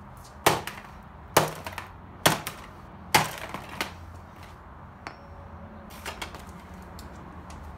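Claw hammer smashing a flip phone on cardboard: four hard blows just under a second apart, each followed by a small clatter of plastic, then a few lighter knocks.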